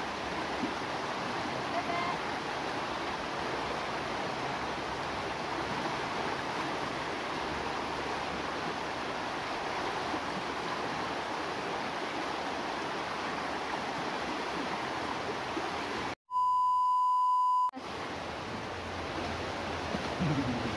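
Fast-flowing river rushing over rocks, a steady, even wash of water noise. About 16 seconds in it is cut off by a loud electronic beep, one steady tone lasting about a second and a half, after which the river sound resumes.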